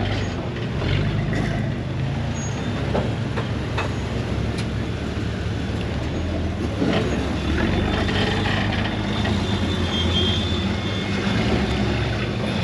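Rock-crawler buggy engines running at low revs while crawling over boulders, the pitch stepping up and down with the throttle, with a couple of sharp clicks.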